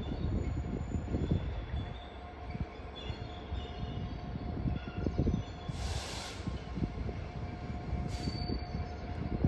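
Class 66 diesel locomotive approaching slowly with a train of tank wagons, its engine a steady low rumble with a faint steady whine. Two short bursts of hiss come about six and eight seconds in.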